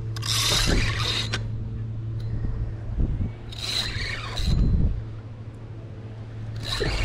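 Penn spinning reel being cranked to retrieve line, a whirring in three spurts of about a second each, over a steady low hum.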